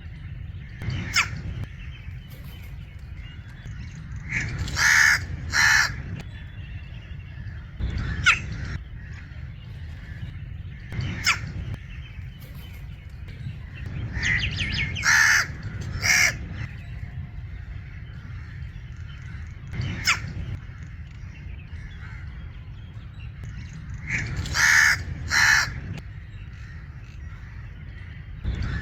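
Crow giving coughing calls: about every ten seconds a short run of calls ends in two loud ones, with single short calls in between, over a steady low rumble.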